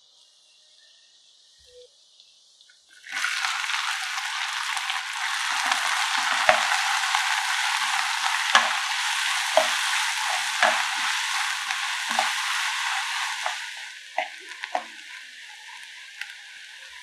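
Oil in a pan with a faint sizzle of cumin seeds, then an abrupt loud sizzle about three seconds in as chopped onions fry, stirred with a wooden spatula that knocks and scrapes against the pan now and then. The sizzle drops to a quieter level near the end.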